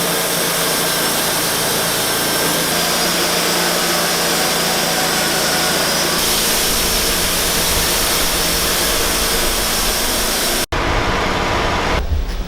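Sawmill running, its engine and blade making a loud steady noise while milling a timber; it cuts out for an instant near the end.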